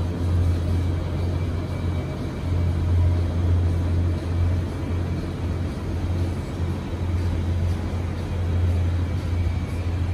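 Supermarket aisle ambience: a steady low hum with store music playing faintly in the background.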